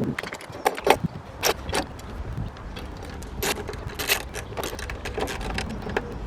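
Irregular clinks and knocks of hard, mostly metal objects being handled, a few with a brief metallic ring, over a low steady background rumble.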